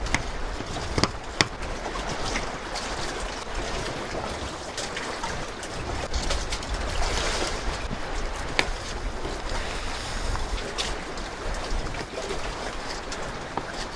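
Steady wash of sea surf, with a few light clicks of a fish knife against a plastic cutting board as a fish fillet is sliced.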